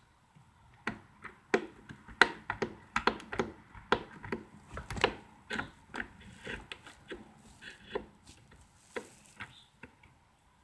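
A run of irregular clicks, taps and knocks, about two or three a second, like hard objects being handled; no engine running.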